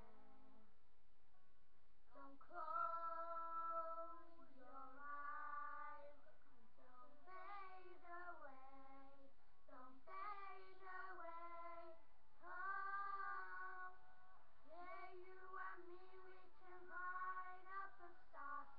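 A high voice singing a tune unaccompanied, in long held notes that step up and down, phrase after phrase with short breaks between.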